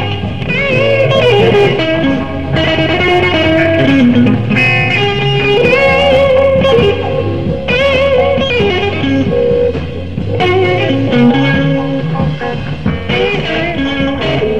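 Live electric blues band playing: a lead electric guitar bends and wavers its notes over a steady low bass line.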